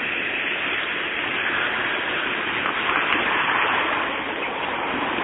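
Tram passing at close range: a steady rushing noise of steel wheels rolling on the rails, swelling slightly midway and easing near the end.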